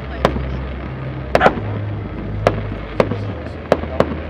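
Fireworks display going off across the water: about seven sharp, irregular bangs, two of them in quick succession, each with a short echoing tail. A low hum runs underneath and shifts pitch a few times.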